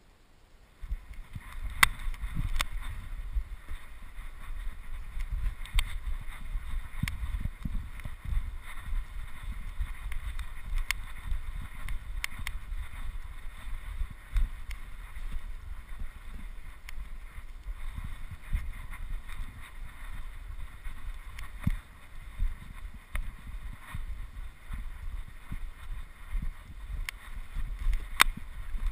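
Wind buffeting the microphone as an uneven low rumble, starting about a second in, with scattered sharp clicks.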